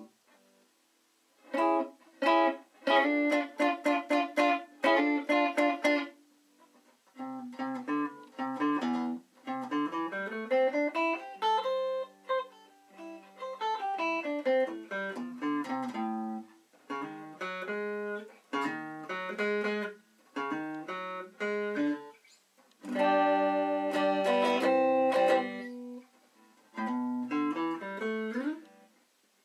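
Small semi-hollow-body electric guitar, a home-built Gibson CS-356-style instrument, being played. It starts with short, choppy chords, moves to runs of notes that climb and fall, and ends with more chords, with short pauses between phrases.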